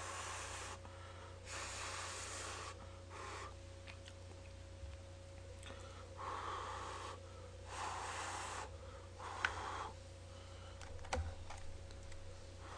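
A man breathing in and out while eating fried chicken: about six breaths, each up to about a second long, at uneven intervals, with a sharp click near the end.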